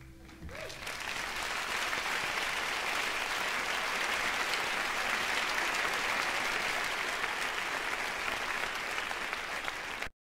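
Live concert audience applauding at the end of a song, swelling up within the first second as the band's last held chord dies away. The steady applause cuts off abruptly near the end.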